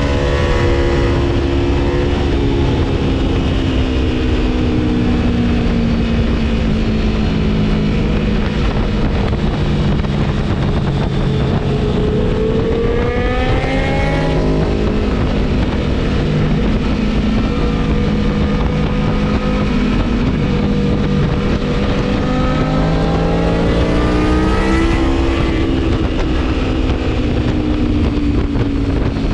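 Aprilia Tuono V4 1100's V4 engine, Gabro Stage 3 tuned, running hard on a ride: the revs climb steeply twice, once near the middle and once later on, and fall away after each climb.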